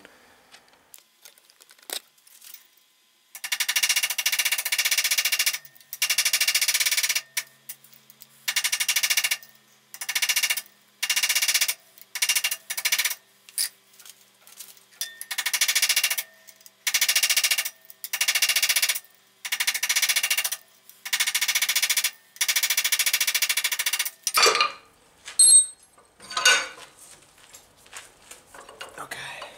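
Cape chisel cutting a slot into a cold steel shaft held in a vise, driven in about a dozen bursts of rapid-fire blows, each burst one to two seconds long with short pauses between, the steel ringing through each burst. The chisel is cutting on both corners of its edge. A few lighter metal clicks follow near the end.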